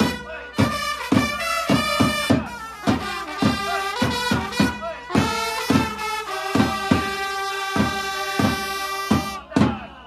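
A section of trumpets plays a Japanese pro-baseball player cheer song in unison, with shouted 'Oi! Oi!' chants through a megaphone and regular sharp accented beats. The tune ends with a last accented hit shortly before the end.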